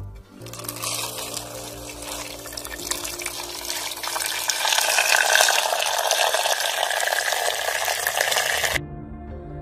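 A stream of running water pouring into a pot and splashing over whole tomatoes. The splashing grows louder about halfway through and cuts off sharply about a second before the end.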